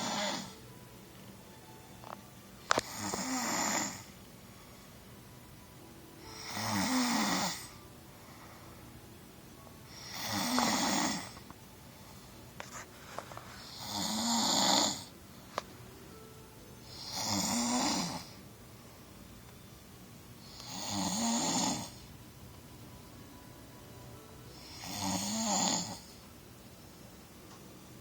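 A person snoring in a steady rhythm, one long snore about every three and a half seconds, seven in all. A sharp click comes just before the first full snore, and a fainter one about halfway through.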